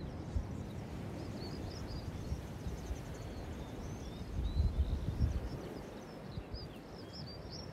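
Wind rumbling on the microphone, gusting louder around the middle, with small birds chirping faintly and repeatedly over it.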